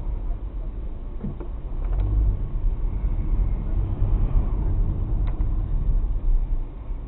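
Car driving, heard from inside the cabin: a steady low rumble of engine and road noise that grows a little louder about two seconds in, with a couple of faint clicks.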